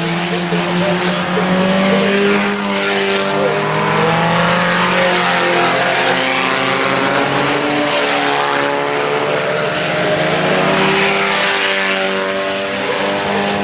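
Several IMCA Sport Compact race cars' four-cylinder engines running hard together, their pitches rising and falling as they lift and accelerate. A hiss swells every few seconds as cars go by.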